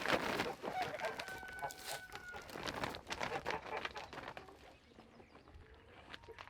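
Chickens clucking, with one drawn-out call about a second in, over scattered rustling and clicks that fade toward the end.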